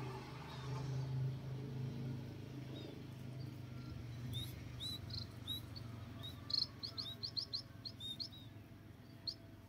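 Small birds chirping: a scatter of short, high calls starting about four seconds in, coming thick and fast for a moment in the middle, over a faint low hum.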